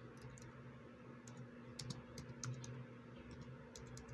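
Faint typing on a computer keyboard: irregular key clicks entering a terminal command, over a low steady hum.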